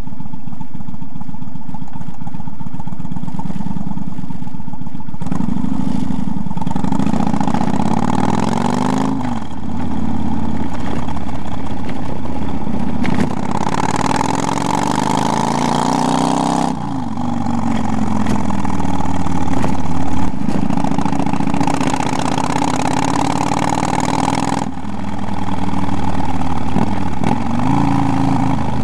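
Kawasaki cruiser motorcycle engine under way. Its pitch climbs and drops back sharply twice as the rider accelerates and shifts up, about 9 and 17 seconds in, then eases off, with wind rushing over the microphone while the bike is at speed.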